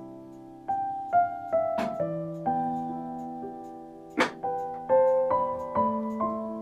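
Soft background piano music playing a slow melody of single struck notes that ring and fade, with two sharp clicks about two and four seconds in.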